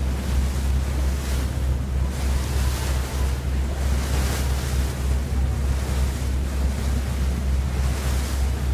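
Wind buffeting the microphone over water rushing past a moving boat, with a steady low rumble underneath.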